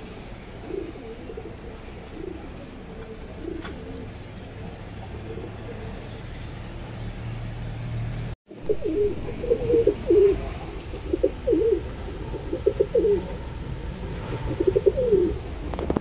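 Domestic pigeons cooing: faint coos at first, then after a brief gap about eight seconds in, louder repeated coos close by.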